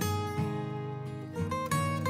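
Background music: an acoustic guitar playing a plucked melody.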